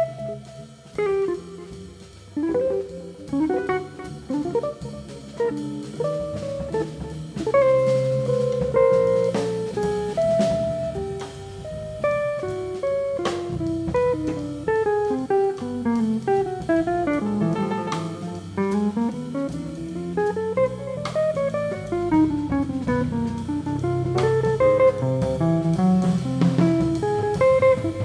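Live jazz band playing an instrumental passage: a plucked-string melodic line in quick notes, with runs that rise and fall, over drum kit and cymbals.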